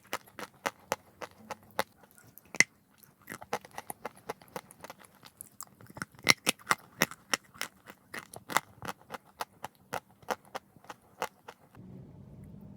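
Close-up crunching and chewing of chalk, as a series of sharp crisp crunches several times a second. The crunches stop near the end, leaving a faint low hum.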